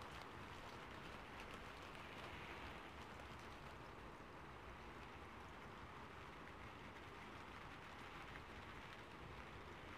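Steady rain falling: a faint, even hiss.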